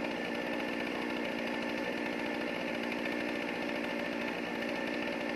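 Two-stroke chainsaw running steadily at an even pitch.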